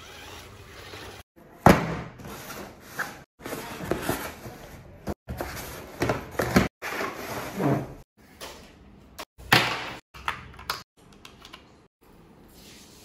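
Cardboard box and packaging of a toy RC car being handled: flaps opened, a cardboard insert pulled out and plastic parts set down, giving scattered knocks and rustles. The sound cuts off abruptly several times, and the sharpest knock comes about two seconds in.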